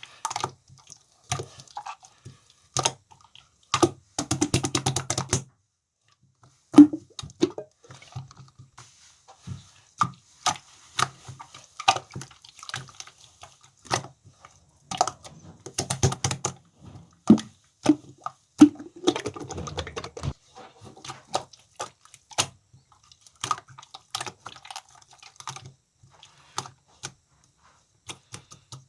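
Slime being pressed, squeezed and stretched by hand, giving irregular sharp clicks and pops, with a couple of short runs of rapid wet crackling.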